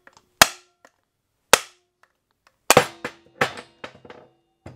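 Hammer striking metal engine parts: two hard, separate blows, then a quicker run of lighter taps near the end, several with a short metallic ring after them.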